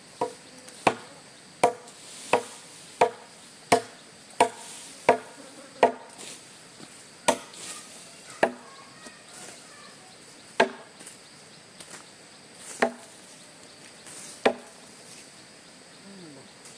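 Repeated chopping, a blade striking wood: about fourteen strokes, coming quickly at first, roughly one every 0.7 s, then slowing to one every second or two after about six seconds.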